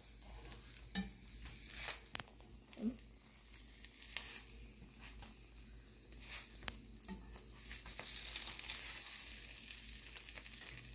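Eggs frying in a nonstick frying pan on an electric stove: a steady sizzle with scattered crackles and pops, getting a little louder about halfway through.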